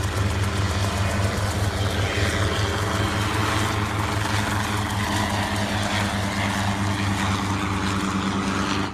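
A light piston helicopter flying close by: steady rotor and engine noise with a rhythmic low beat from the blades. It cuts off suddenly near the end.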